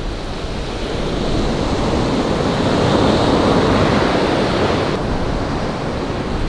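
Ocean surf breaking and washing up a sandy beach, swelling to a peak about three seconds in and then easing off.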